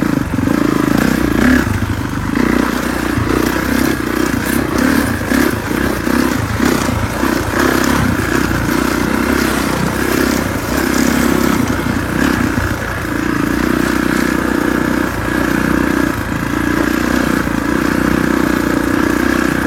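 Single-cylinder four-stroke engine of a 2019 Kawasaki KX450 dirt bike running under way, the throttle swelling and easing off again and again, with clatter and scraping from the bike as it rides.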